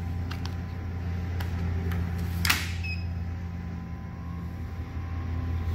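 Coffee vending machine in use: a steady low hum, one sharp click about two and a half seconds in, then a short electronic beep as the card payment is being authorised.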